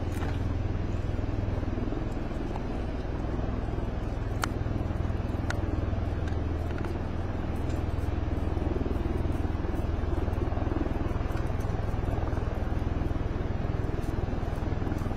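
Steady low engine rumble with a faint click or two about halfway through.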